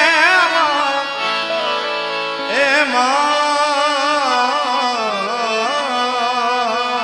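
Gujarati devotional bhajan: a male singer draws out wordless, wavering ornamented vowels over instrumental accompaniment with steady held notes. One vocal phrase tails off about a second in, and another runs from a little before the middle to near the end.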